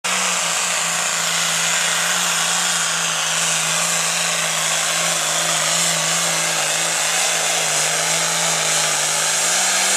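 Turbocharged diesel engine of a Pro Farm pulling tractor running hard at a loud, steady high pitch, with a strong hiss over the engine note.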